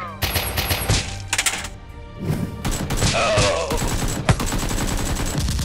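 Background music overlaid with movie-style gunfire sound effects: quick bursts of shots, with a brief lull about two seconds in and a single sharp crack a little after four seconds.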